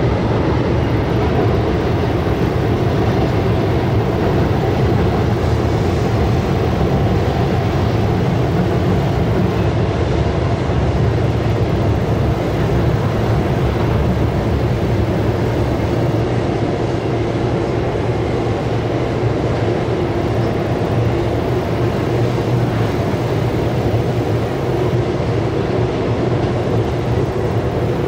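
Norfolk Southern intermodal freight train with trailers on flatcars rolling across a steel trestle, making a steady low rumble.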